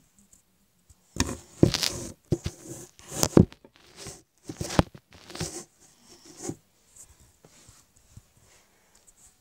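A run of irregular thumps and rustling knocks, several close together in the first half, then fewer and fainter.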